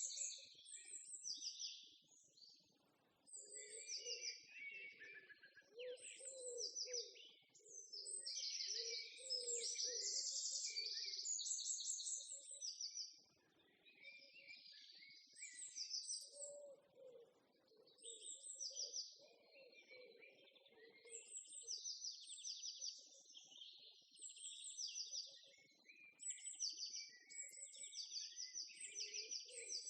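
Several songbirds chirping and singing in quick, rapid trilled phrases, overlapping almost without pause, with lower, softer calls underneath at times.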